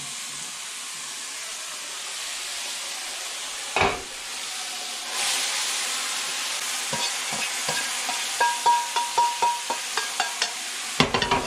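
Food sizzling in a frying pan, growing louder about five seconds in, then a quick run of ringing metal clinks of a utensil knocking against the pan.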